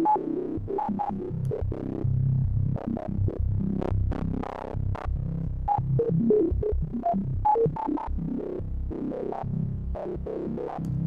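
Xfer Serum synth patch holding one low note: a driven sine wave through a resonant band-pass filter whose cutoff and resonance are thrown around at random in quick sixteenth-note steps by a sample-and-hold Chaos modulator. The filter peak jumps to a new pitch many times a second over the steady low note.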